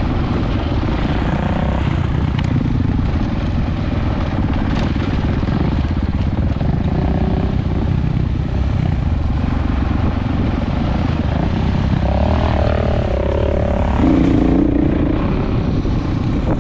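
Off-road vehicle engine running under way on a rough dirt trail, mixed with heavy wind rumble on the microphone; the engine note rises and falls with the throttle, most clearly near the end.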